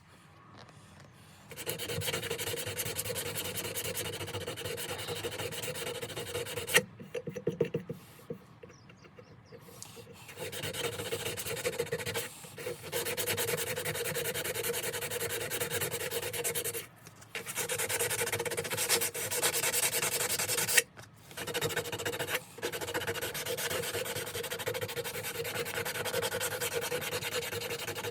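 Steel knife blade being hand-sanded with wet/dry sandpaper: fast scratchy back-and-forth rubbing strokes. The strokes pause for a few seconds about a quarter of the way in and stop briefly a few more times, with a couple of sharp clicks.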